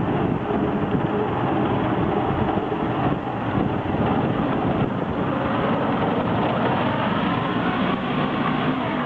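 Small waterjet boat's 10 hp air-cooled engine running steadily under way.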